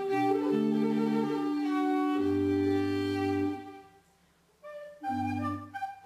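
Violin and pipe organ playing a slow piece together, with long held notes and a steady low organ line. The music breaks off briefly about four seconds in, then starts again.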